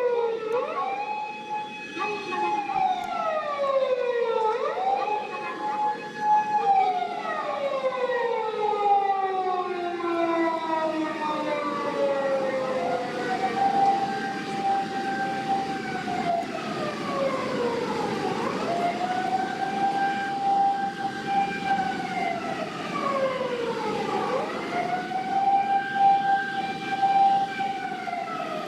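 Emergency vehicle sirens wailing. For the first several seconds a few sirens overlap at different pitches; after that a single siren repeats a cycle of rising to a held tone, holding, and falling, about every six seconds.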